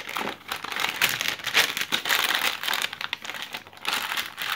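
Foil toy packets and a paper magazine being handled on a table, crinkling and rustling irregularly as they are moved and the magazine is spread open.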